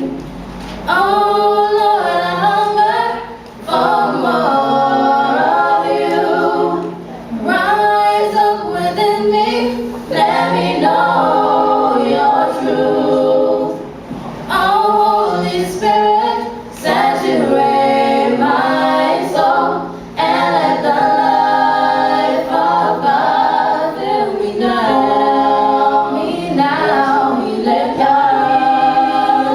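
A cappella vocal group singing in harmony, phrase after phrase with short breaks between.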